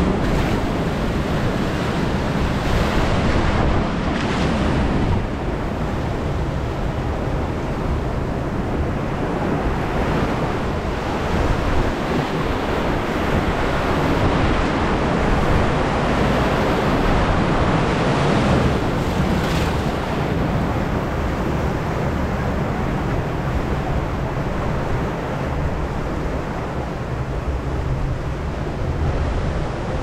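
Steady rush of churning whitewater in a river rapids ride channel, heard from aboard the raft, with wind buffeting the microphone.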